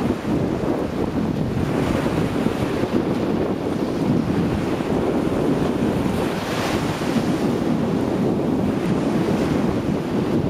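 Small sea waves breaking and washing up a flat sandy shore, with wind buffeting the microphone. One wash swells a little brighter and louder about two-thirds of the way through.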